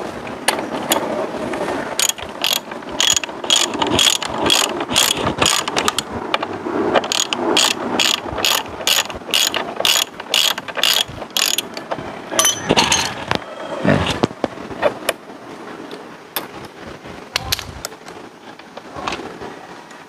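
Ratchet wrench clicking as a bolt is turned out on the scooter's rear swing arm area, in a steady run of about three clicks a second for about the first half, then a few scattered clicks and knocks of the tool on metal.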